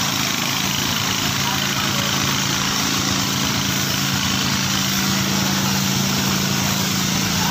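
Engine of a water-tanker rig running steadily at constant speed, with the even hiss of water jetting from a hose onto the road.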